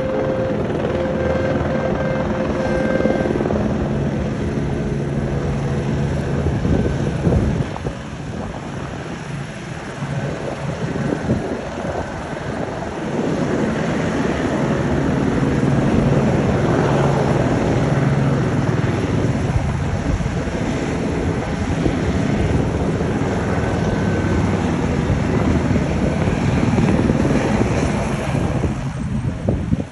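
A steady engine drone with a low hum under a rushing noise, easing off about a quarter of the way through and swelling again near the middle.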